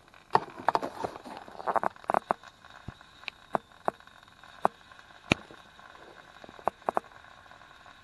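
Small model steam boiler still boiling and pushing steam, giving irregular sharp pops and crackles, dense for about the first two seconds and then scattered single ticks.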